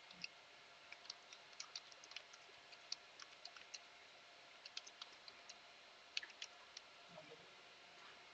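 Faint computer keyboard typing: scattered light key clicks in short runs, over near-silent room tone.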